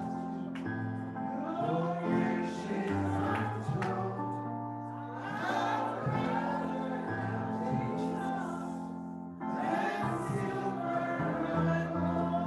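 Gospel music: a group of voices singing over steady, held instrumental chords.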